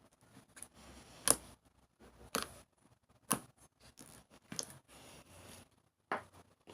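Slime being pressed and stretched by hand, giving a series of sharp, clicky pops about once a second, the loudest about a second in.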